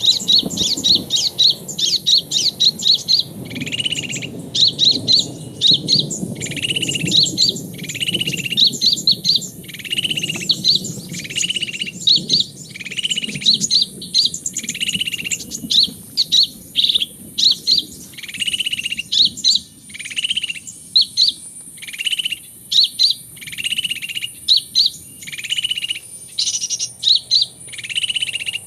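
Small birds chirping: quick runs of high chirps, each followed by a lower buzzy note, repeated over and over at an even pace.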